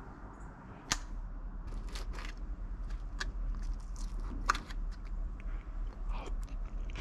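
Spoon scraping and tapping in an aluminium foil tray of baked corn cheese: a string of short clicks and crackles, the sharpest about a second in and again near the middle.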